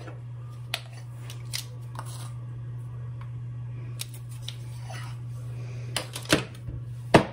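Scattered light clicks and taps of plastic measuring spoons and a spice container against a plastic mixing bowl as black pepper is measured in, with a sharper knock near the end. A steady low hum runs underneath.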